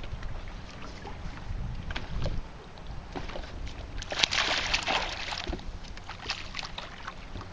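A hooked bass splashing and thrashing at the water's surface beside the boat for about a second, around four seconds in, over a steady rumble of wind on the microphone.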